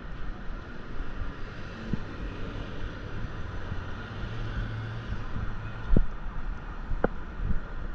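City street ambience with steady traffic noise; a vehicle engine hums low for a couple of seconds in the middle, and a few short knocks come near the end.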